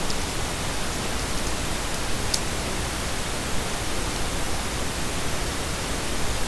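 Steady, even hiss of recording noise with no speech, and one faint click about two seconds in.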